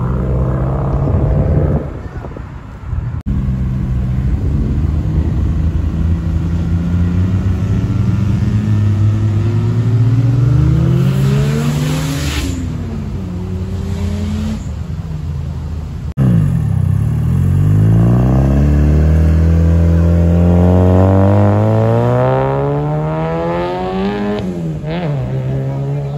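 Car engines revving and accelerating hard along a street. Engine pitch climbs in long pulls, drops at a gear change and climbs again, with one especially strong pull starting low about two-thirds of the way through.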